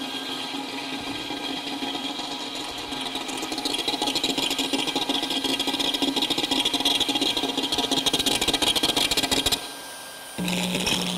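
Amplified electronic drone from a sound-art installation of wired devices, with a fast buzzing pulse that swells about a third of the way in. The buzz cuts off suddenly near the end, and after a short lull a lower steady hum starts.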